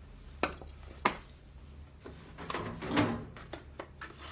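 Handling noise as a leather tripod case and a small wooden-and-leather camera box are moved about and lifted out of a wooden trunk. Two sharp knocks come in the first second, then a stretch of scraping and knocking about three seconds in.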